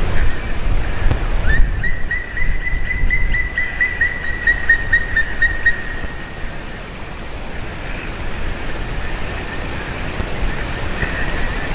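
Black woodpecker calling a rapid series of about fifteen ringing notes, roughly four a second, starting a couple of seconds in and sinking slightly in pitch as it fades. A steady rushing noise runs under it.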